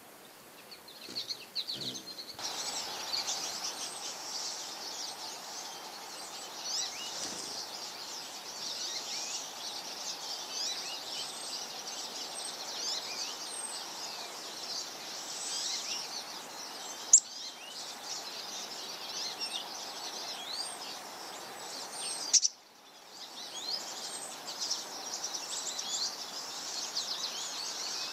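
Many songbirds chirping and twittering at once, a dense, continuous chorus of short high calls. One sharp click stands out about 17 seconds in.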